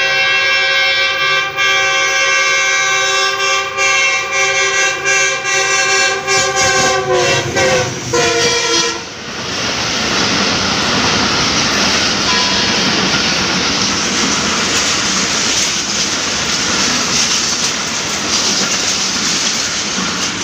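GE U20C (GEU-20) diesel-electric locomotive sounding its horn almost continuously as it approaches at speed, with a few short breaks; the horn's pitch drops as the locomotive passes, about eight seconds in, and then stops. The passenger coaches then rush past with a steady, loud noise of wheels on rail.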